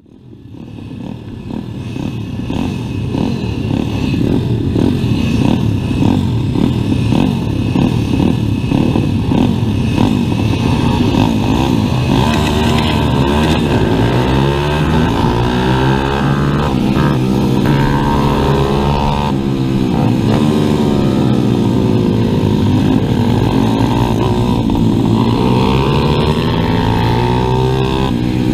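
Onboard sound of a stock 140cc single-cylinder four-stroke pit bike engine at racing speed. The revs climb and drop again and again through gear changes and corners. It fades in over the first few seconds.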